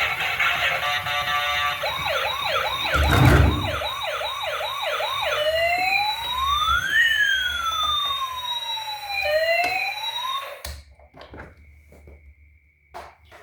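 Electronic toy emergency-vehicle siren: a fast yelping warble, then a slower rising and falling wail, which cuts off suddenly about ten seconds in. A thump sounds about three seconds in, and faint clicks follow the siren.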